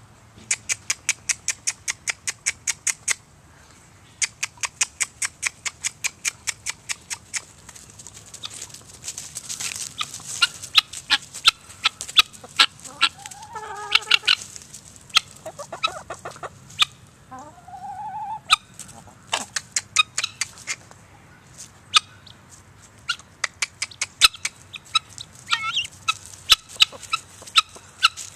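Helmeted guineafowl cackling in runs of harsh, rapid calls, about six a second, each run lasting a few seconds with short gaps between. A few short pitched chicken calls come in around the middle.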